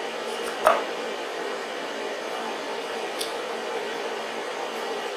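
A single sharp knock as the rear main seal housing is pushed over the crankshaft and seats against the Cummins 5.9 block, then a small click a few seconds later, over steady background hum. The housing took more than one push to go on.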